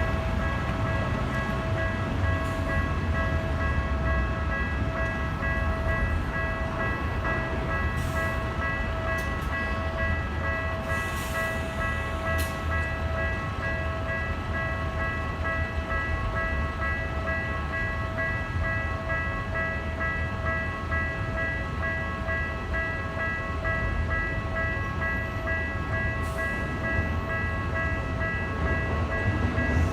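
Japanese level-crossing warning bell ringing steadily, over a continuous low rumble.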